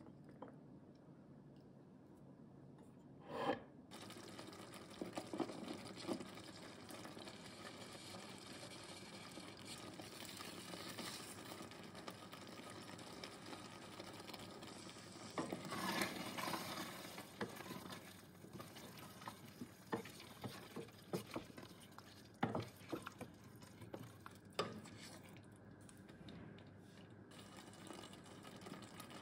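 Spoon stirring a thick tomato-and-onion sauce in a stainless steel saucepan over a low simmering sizzle, with a few short scrapes and knocks against the pot.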